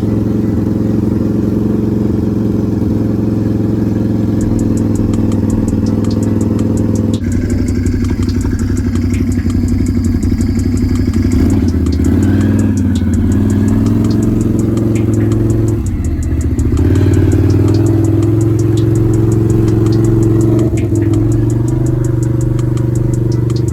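Can-Am Renegade 1000 XMR ATV's V-twin engine running, its speed dropping and picking up again several times.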